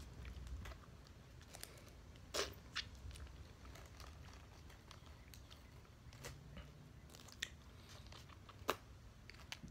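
Faint crinkling and crackling of a thin plastic jelly-straw tube being handled and torn open, with scattered sharp clicks, the loudest about two and a half seconds in and near the end.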